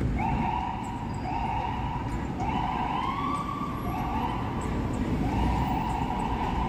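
Emergency vehicle siren sounding in a repeating cycle: each tone sweeps up quickly, then holds steady for about a second before the next one starts. Steady city-traffic rumble underneath.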